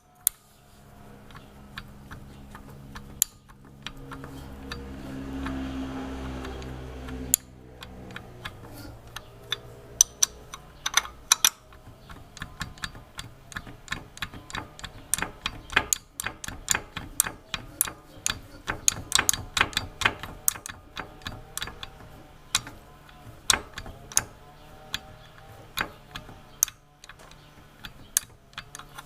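2001 BMW R1150R boxer twin running with a steady hum and many sharp, irregular ticks and clicks over it: the engine noise being traced to the crankshaft pulley area. The running sound swells louder about four seconds in and drops back about seven seconds in.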